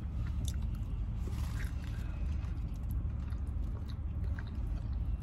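Close-miked eating: faint chewing and biting sounds with a few small, scattered clicks and smacks over a steady low hum.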